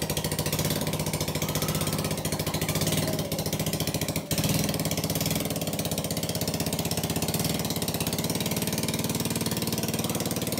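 Chinese quad's 110cc single-cylinder four-stroke engine running steadily on a home-built go-kart, with a brief dip in level about four seconds in.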